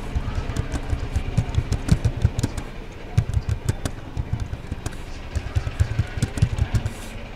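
Computer keyboard typing: irregular runs of key clicks, each with a dull thud of the keys bottoming out, pausing now and then between words.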